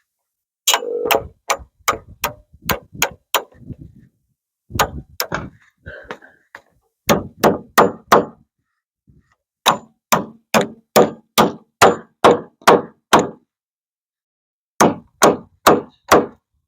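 Hammer blows struck in quick runs of several strikes, about three a second, with short pauses between the runs.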